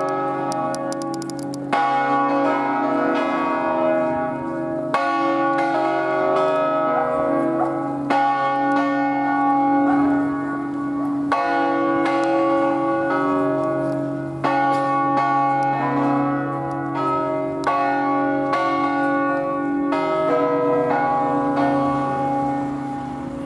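A concerto of five bronze church bells in B, cast by the Barigozzi foundry of Milan, rung by rope in the Ambrosian manner: the bells swing full circle on their wheels and strike in a steady stream of overlapping strokes, each one ringing on under the next. A louder stroke stands out about every three seconds.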